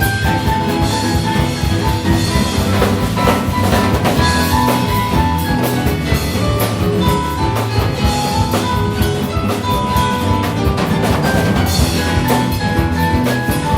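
Ensemble music playing continuously, with a drum kit keeping a steady beat under pitched melody notes.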